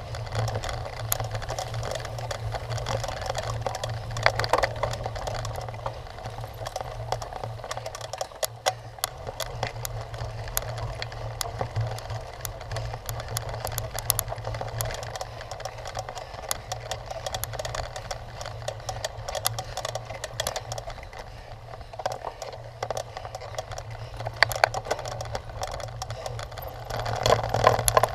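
Cyclocross bike rattling over rough ground: continuous chain and frame clatter with many sharp clicks and knocks over a steady low hum.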